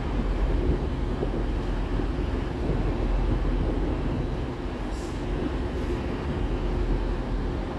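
Passenger multiple-unit train moving slowly through a station, a steady low rumble and hum of the train in motion. Two short hisses come about five and six seconds in.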